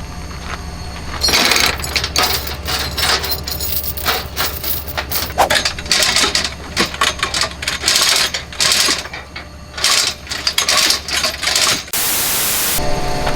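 Loose coins clinking and jingling as they are handled, a dense run of sharp metallic clicks. Near the end a short burst of steady hiss.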